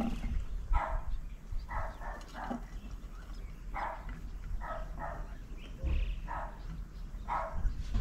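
Short animal calls, about nine of them, each a fraction of a second long and coming roughly once a second, over a steady low rumble.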